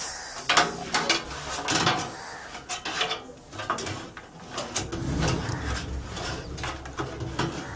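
Irregular clicks, knocks and rattles of a PC power supply's cable bundle and plastic connectors being handled inside a steel computer case.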